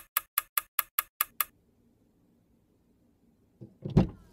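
A typing sound effect: eight quick keystroke clicks, about five a second, then stillness. A low thump about four seconds in.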